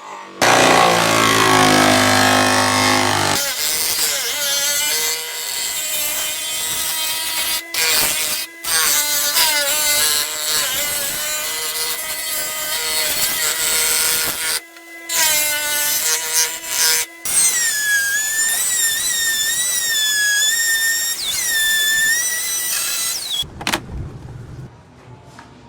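Handheld power tool running under load with a dense whine that wavers in pitch, stopping briefly a few times. It is preceded by a loud sound of stepped low tones in the first three seconds.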